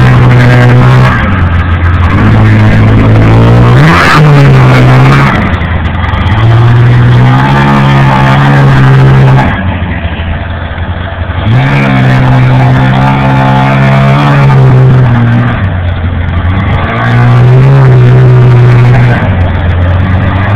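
John Deere Liquifire snowmobile's two-stroke engine running under throttle, opened up and eased off again and again: the revs climb, hold steady for a few seconds, then fall back, with a quieter low stretch about halfway through.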